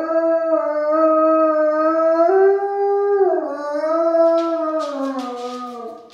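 A large dog giving one long howl, held on a fairly steady pitch, stepping up a little past two seconds in, then dropping and sliding slowly lower until it fades out just before the end.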